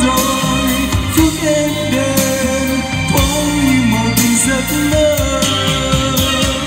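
Karaoke backing music played through a portable trolley speaker, with a man singing along into a wireless microphone.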